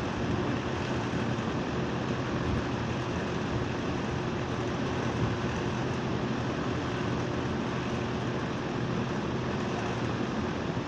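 Outdoor unit of a split-type air conditioner running steadily: an even machine hum with fan noise.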